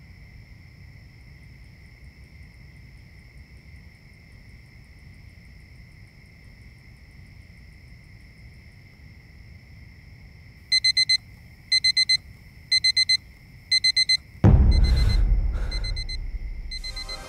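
Digital alarm clock beeping in quick groups of four, about once a second, starting about two-thirds of the way in, over a faint steady high-pitched tone. A sudden loud low boom hits near the end and fades over a couple of seconds while the beeping continues.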